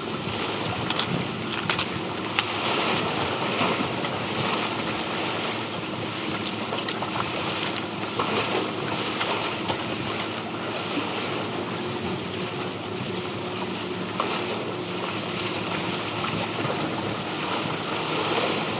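Sea waves washing on the shore with wind buffeting the microphone, a steady rushing noise with a faint low hum underneath.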